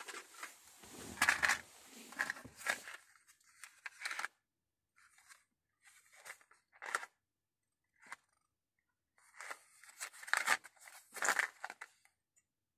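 Stiff plastic blister pack of LED bulbs being handled, crinkling and crackling in short irregular spells, loudest about a second in.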